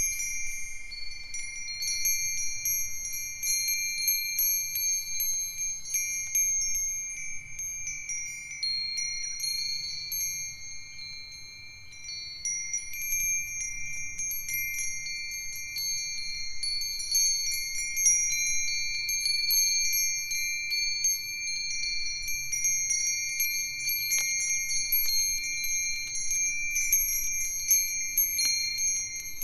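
A set of Japanese wind chimes (fūrin): Myochin fire-tong rods, Nambu cast-iron bells, Nousaku metal bells and a sanukite stone chime, ringing together in a breeze. Many strikes overlap into sustained high, clear tones, and the ringing eases briefly about eleven seconds in.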